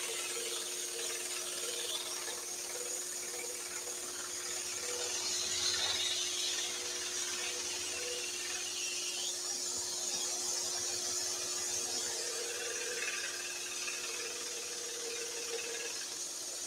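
Axminster scroll saw running steadily, its reciprocating blade cutting a rounded corner off an oak board.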